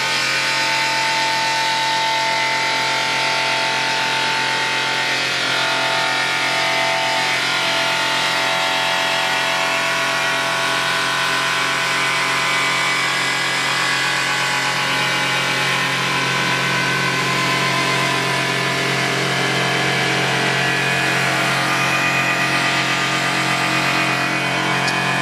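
Abrasive belt grinder running against a stainless steel tank's weld seam: a steady, loud grinding hiss over an electric motor's low hum, with a few ringing tones that shift in pitch partway through.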